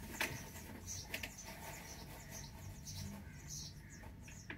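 Indian robin nestlings giving faint, high, squeaky begging chirps, repeated every half second or so. A few sharp clicks stand out, the loudest just after the start.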